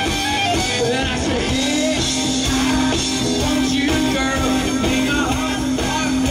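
Live country-rock band playing: electric guitars, drums and a male lead singer, with a long held note entering about a second and a half in and running on under the band.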